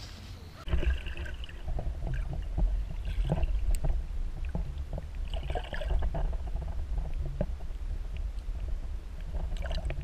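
River water heard through a camera held underwater: a muffled, deep steady rumble with scattered knocks and splashy gurgles, starting suddenly about a second in.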